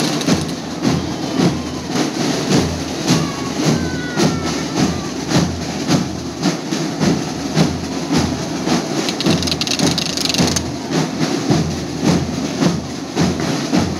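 Murga drum section playing bass drums in a steady, driving beat, about two to three strokes a second.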